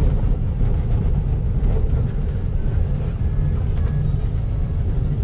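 Moving truck heard from inside its cab: a steady low rumble of engine and road noise.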